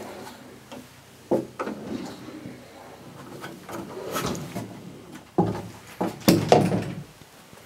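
Wooden knocks and bumps of doors being handled, such as a closet door swinging shut. Two knocks come about a second and a half in, another near four seconds, and a cluster of louder, sharper ones between about five and a half and six and a half seconds.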